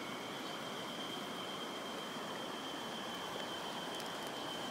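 Shallow river water flowing and rippling steadily over stones, with a thin steady high-pitched whine running through it and a couple of faint clicks about four seconds in.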